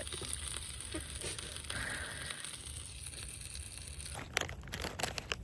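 Plant-based burger patty frying in a pot, a steady low sizzle. From about four seconds in come a run of sharp clicks and crackles.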